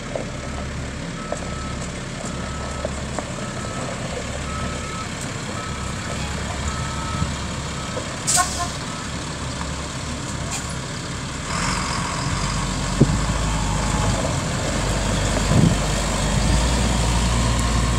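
Medium-duty truck running as it maneuvers, with a backup alarm beeping about once a second for the first several seconds. A brief hiss comes about eight seconds in, then the engine grows louder as the truck drives forward toward and past the listener.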